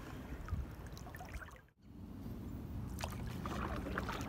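Water lapping and trickling against a canoe's hull, a soft steady wash with a low rumble and a few small drips. The sound drops out briefly about halfway through, then resumes.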